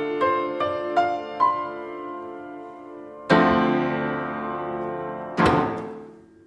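Closing bars of a song played on piano: four single notes climbing in pitch, then two struck chords, the last left to ring and fade out.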